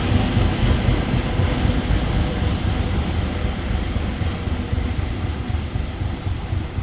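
Repair train hauled by a ChME3 diesel shunting locomotive rolling past, a steady low rumble and rail noise that slowly fades.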